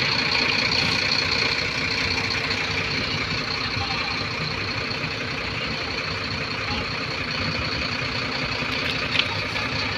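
Steady hum of an engine idling, with a constant high whine over it, and a single sharp click about nine seconds in.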